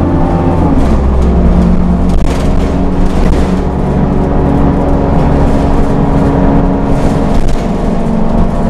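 1996 Orion V transit bus, a former CNG bus, standing with its engine idling: a loud, steady drone.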